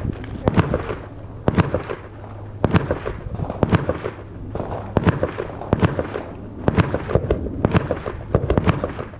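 Rifle gunshots from an AR-style rifle, about a dozen sharp shots at an irregular pace of roughly one to two a second, some coming in quick pairs.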